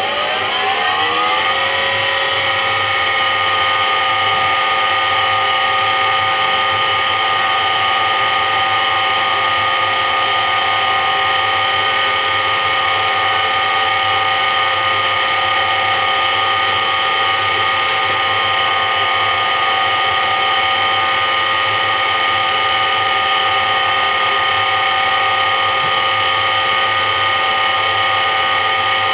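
Washing machine drum spinning up over the first two seconds, then running at a steady spin with a loud humming whine of many steady tones: the hum of a worn drum bearing.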